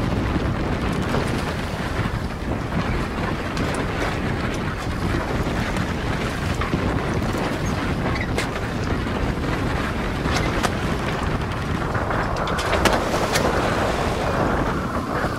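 Gale-force wind buffeting the microphone over rough, choppy water slapping and splashing against the harbour's quay wall and breakwater. The rush of water swells louder near the end.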